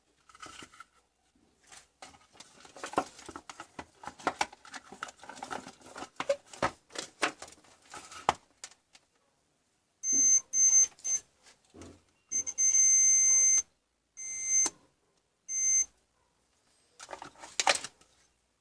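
Clicking and clattering of small parts and tools being handled, then a multimeter's continuity beeper sounding: several short beeps, one beep of over a second, and two more short beeps. A sharp clatter comes near the end.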